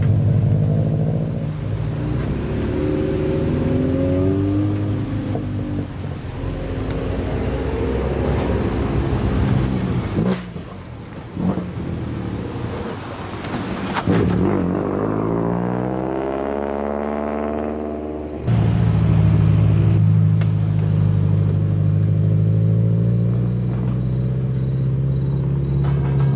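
Loud exhausts of modified, lowered cars driving out one by one: engines revving, then one passing with a long fall in pitch. About two-thirds of the way in a louder, steady, low exhaust note starts suddenly.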